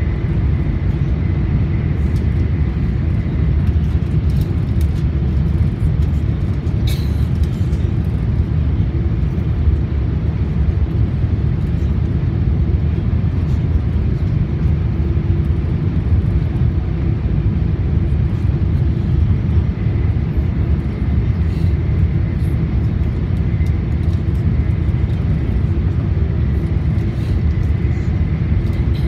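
Running noise inside an E4 series Max double-decker Shinkansen car at speed: a steady low rumble with a faint steady whine above it and occasional light clicks, the sharpest about a quarter of the way through.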